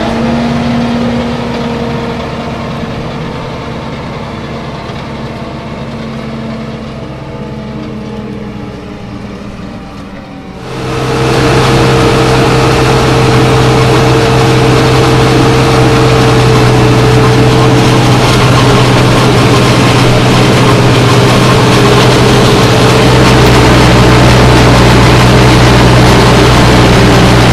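Tractor engine and a tractor-driven Çelmak two-row corn silage harvester running steadily while cutting and chopping maize. About ten seconds in the sound suddenly becomes much louder and denser, a heavy steady drone with a rushing noise over it.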